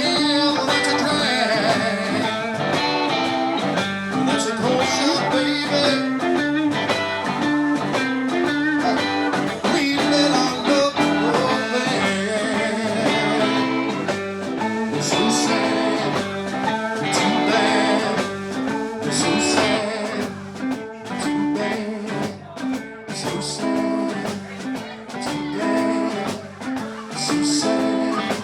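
Live blues-rock band playing an instrumental passage, a guitar carrying the lead over bass and drums.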